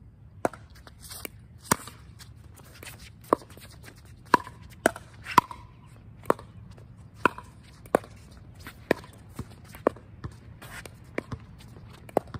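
Pickleball rally: paddles striking a hollow plastic ball back and forth, a sharp pop every half second to second, about fifteen in all, some ringing briefly.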